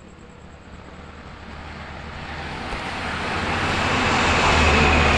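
Typhoon wind gusting, a rushing noise that swells over about four seconds to a loud peak near the end, with deep rumbling of wind on the microphone.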